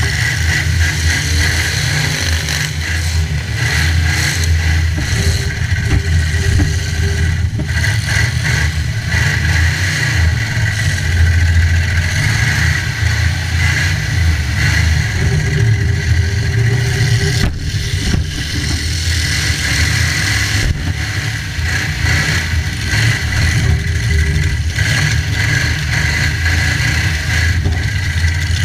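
Demolition derby car engines running hard and revving, with a few sharp knocks of impacts.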